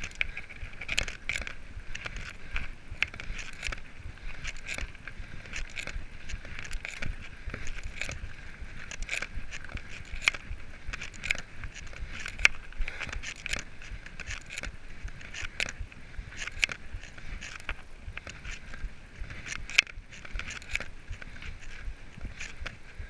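Mountain bike rolling fast over a gravel track: tyres crunching on loose stones and the bike rattling, with frequent sharp clicks and knocks as it hits bumps.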